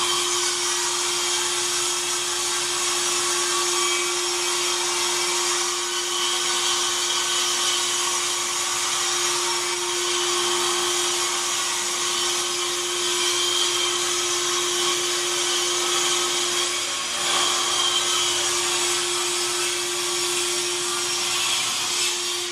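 A loud motorised machine running steadily: a constant hum under a broad whooshing hiss, with a brief change about 17 seconds in.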